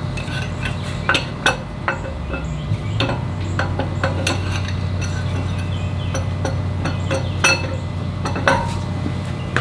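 Metal parts clinking and tapping as engine internals are handled inside a bare V8 engine block on an engine stand, with a steady low hum underneath.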